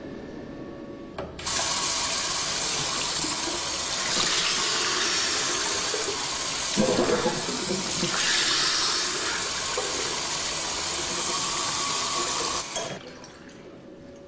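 Water running from a tap into a sink, a steady rush that comes on suddenly about a second and a half in and is shut off suddenly near the end, with a brief rougher splash about halfway through.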